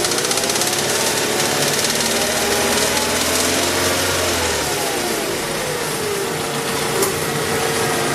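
Mazda 6 engine running with a rapid knock that its owner cannot place; the revs fall from about four seconds in and settle to a steady idle. A single sharp click about seven seconds in.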